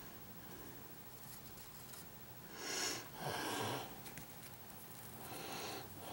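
Faint close breathing through the nose: two breaths, each a short intake followed by a longer exhale, about three seconds in and again near the end, over low room hiss.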